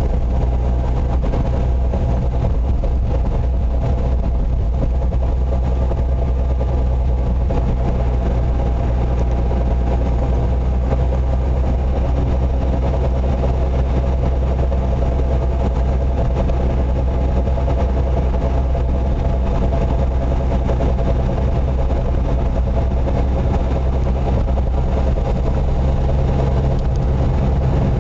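Steady drone of a 1997 Suzuki Wagon R (CT51S) being driven, with a low hum and several steady tones above it: the abnormal running noise the car makes on the move.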